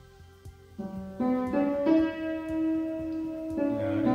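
Slow instrumental piano music: after a quiet first second, a few notes come in one after another and are held long.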